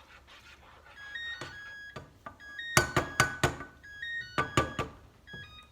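A short tune of brief keyboard-like notes at changing pitches, with sharp knocking hits among them from about three seconds in.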